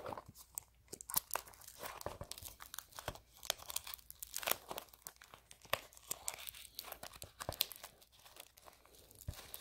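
Plastic wrapping on a small cardboard blind box being crinkled and torn at by fingers: irregular crackles and small rips, a struggle to break into the packaging.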